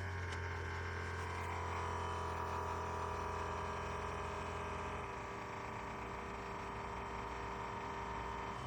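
Rechargeable portable espresso maker's electric pump running steadily while brewing, a constant motor hum with a few fixed tones. Its lowest hum eases about five seconds in.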